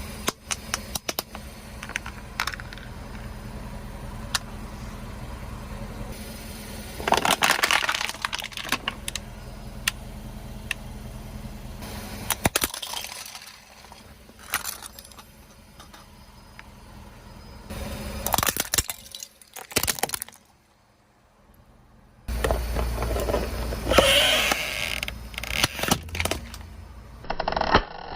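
Objects cracking and crunching as they are crushed under a car's tyres, in several separate bursts of sharp cracks and clicks, over a low steady hum from the car.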